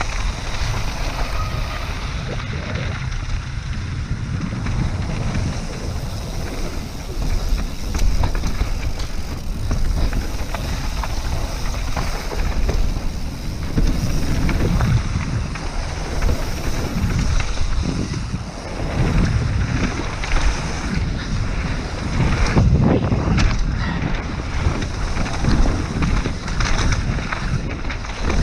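Wind buffeting the microphone of a mountain biker's camera on a fast downhill run, over a rumble of tyres on dirt and a clatter of small knocks from the bike on rough trail. The roar swells and eases several times.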